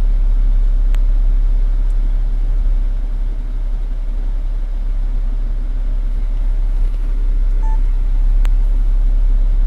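A vehicle's engine idling in a steady low rumble, heard from inside the stopped vehicle, with a faint click about a second in and another near the end.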